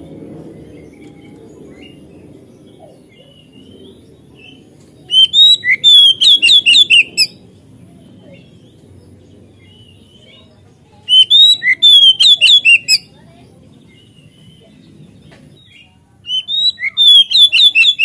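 Oriental magpie-robin (kacer) calling in three loud bursts of rapid repeated high notes, each about two seconds long at roughly five notes a second, with pauses of a few seconds between them.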